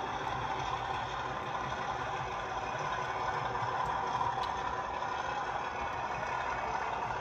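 00 gauge model Class 37 diesel locomotive running with its train of coaches: a steady, even drone with a few faint ticks.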